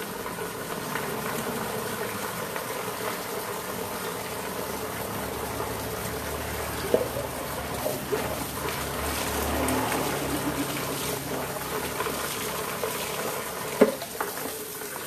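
Water running and splashing into a plastic bucket, with a couple of sharp knocks about seven and fourteen seconds in.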